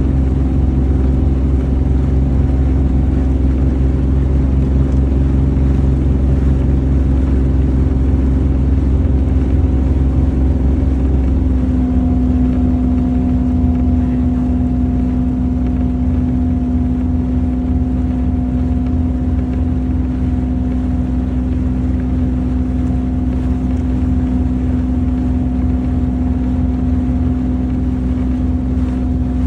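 Boat engine running steadily with a constant hum. About eleven seconds in, the deep rumble eases and a higher steady hum comes forward.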